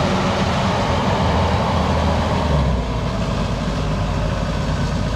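Engine of a small tracked rice carrier hauling grain sacks, running steadily as it crawls through the flooded paddy, its note dropping about halfway through.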